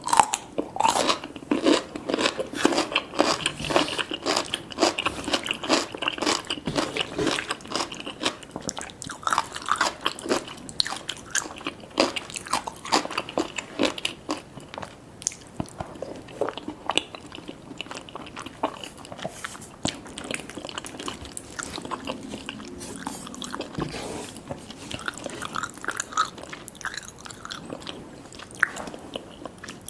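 A person eating close to the microphone: crunchy bites and wet chewing, with many quick crackles. The crunching is densest in the first half and turns softer and sparser later.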